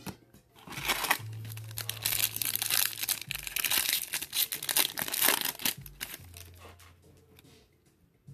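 Foil wrapper of a Topps Chrome trading-card pack crinkling and tearing as it is ripped open by hand, for about five seconds, then stopping.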